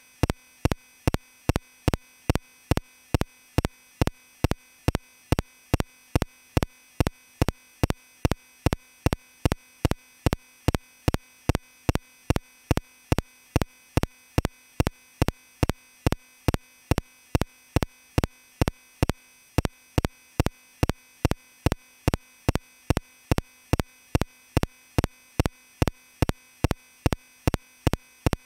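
A steady, perfectly even train of sharp electronic clicks, about two and a half a second, over a faint steady tone.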